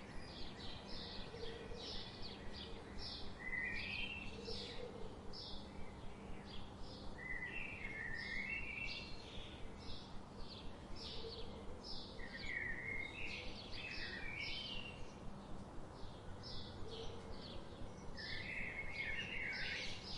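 Small songbirds chirping: a busy run of short, high chirps several times a second, broken every few seconds by a lower, stepped phrase that drops in pitch, over a steady faint background hiss and hum.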